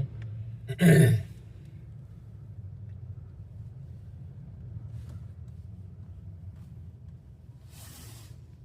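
Steady low hum of a car's engine and road noise heard inside the cabin, with a short spoken exclamation about a second in and a brief hiss near the end.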